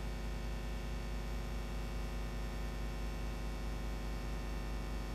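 Steady electrical mains hum with a light hiss from the hall's sound system.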